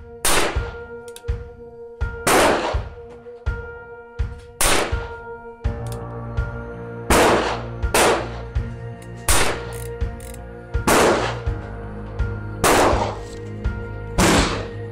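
A string of shots from a Ruger Single-Six .22 rimfire single-action revolver, fired one at a time about every one to two seconds. Each shot rings on briefly afterwards, and faint clicks fall between the shots. Background music plays under the shots and grows fuller about six seconds in.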